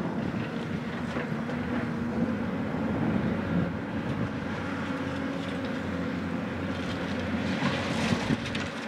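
Steady outdoor rumble of wind on the microphone over a faint, steady engine hum.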